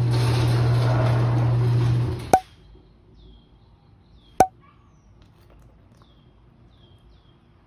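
Electric garage door opener running with a steady hum as the sectional door rolls up. It stops abruptly about two seconds in with a sharp click. A second sharp click follows about two seconds later, then only faint high chirps.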